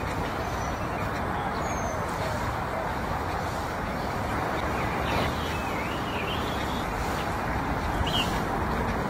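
Steady outdoor background hiss with a few faint bird chirps, including a wavering call about five seconds in.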